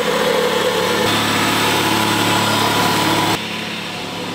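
A small engine running steadily. A little past three seconds in the sound cuts abruptly to a quieter stretch of similar engine noise.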